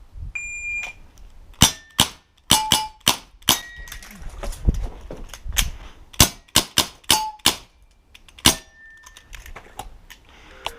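A brief electronic shot-timer beep, then a string of sharp shots from a CO2-powered Dan Wesson 715 6mm airsoft revolver, several followed by the clang and ring of BBs hitting steel targets.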